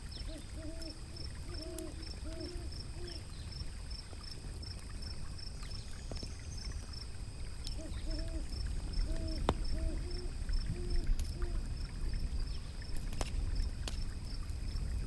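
Two runs of short, quick hoots from a bird, each run six or seven notes, over a steady low rush of flowing water with scattered fire crackles and a faint, high, even ticking about three times a second.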